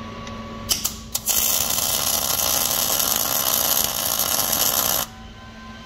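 MIG welder laying a tack weld: a couple of brief arc strikes just under a second in, then a steady arc noise for about four seconds that cuts off suddenly.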